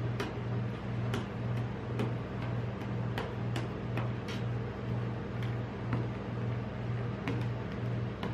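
Metal spatulas scraping and tapping on the frozen steel plate of a rolled-ice-cream pan as they spread and smooth the ice cream, giving irregular sharp clicks. Underneath, a low, evenly throbbing hum from the cold plate's refrigeration unit.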